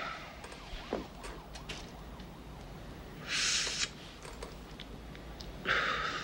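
A man smoking a joint: two short hissing breaths, one about three seconds in and one near the end, over a low steady hum.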